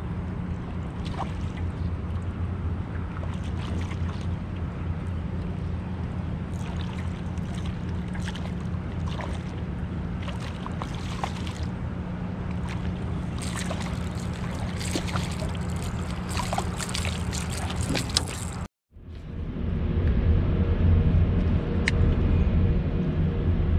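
A small boat motor running steadily, a low hum under scattered light ticks. It drops out for a moment near the end and comes back louder.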